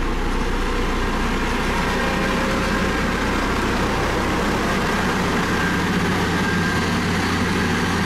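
Single-drum road roller's diesel engine running steadily with a low hum as the compactor moves over a gravel road base.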